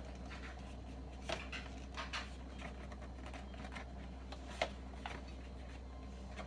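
A cardboard knife box handled in the hands: a few light taps and scrapes as it is turned and gripped, the sharpest about four and a half seconds in, over a steady low hum.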